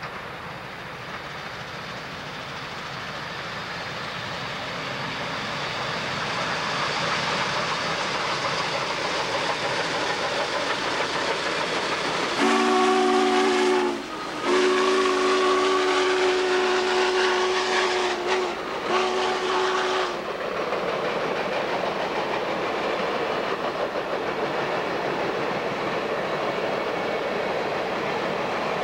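Clinchfield 676, an articulated steam locomotive, working as it approaches and passes close by, its running noise growing louder. About twelve seconds in, its multi-note chime whistle blows a short blast, breaks briefly, then blows a long blast of about six seconds with two short breaks near the end.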